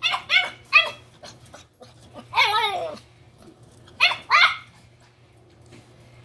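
High-pitched puppy yips: three quick yips, a longer yelp falling in pitch about two seconds in, then two more yips about four seconds in.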